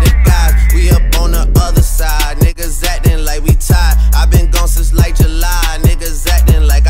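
Hip-hop music with rapped vocals over a heavy bass beat.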